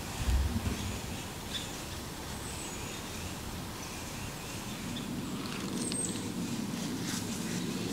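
Small birds chirping here and there in woodland over a steady outdoor hiss, with one low thump just after the start.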